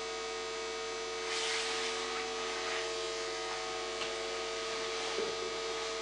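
A steady electrical hum with a faint hiss that swells briefly a couple of times.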